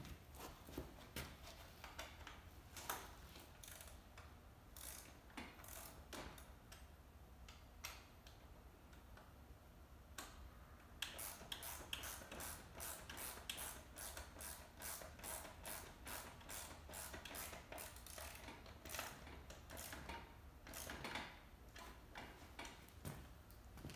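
Ratchet wrench clicking, faint. Scattered clicks come first, then, about halfway in, a long run of steady clicks about four a second.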